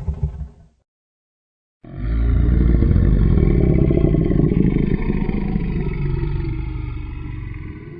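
A Godzilla monster sound effect: a long, deep rumble with layered growling tones. It starts about two seconds in after a short silence, runs for about six seconds and slowly fades. Just before the silence, the tail of the previous roar cuts off.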